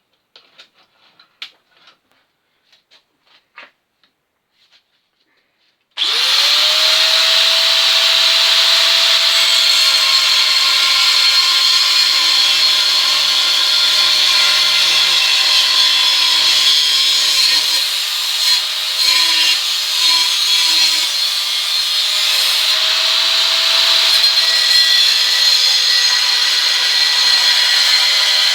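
A few light taps and clicks, then a handheld electric power tool starts about six seconds in, spinning up with a rising whine and then running steadily as it works the steel repair panel.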